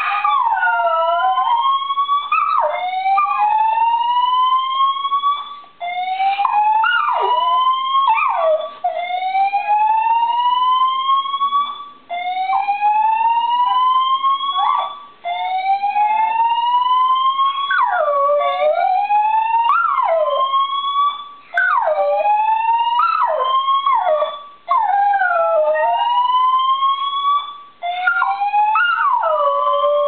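Building fire alarm under test, sounding a repeating rising whoop that restarts about every three seconds, with a dachshund howling along in wavering howls that dip and rise in pitch.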